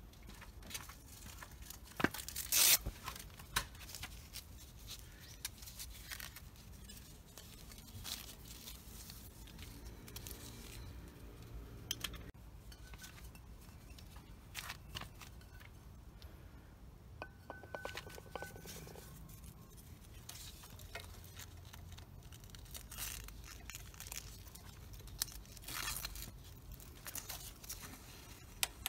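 Handling noises as a strap and pouch are fitted by hand: short rips of a hook-and-loop (Velcro) strap being pulled and pressed, with clinks of a metal carabiner and keys and scattered clicks and rustles. The sharpest clicks come about two to three seconds in.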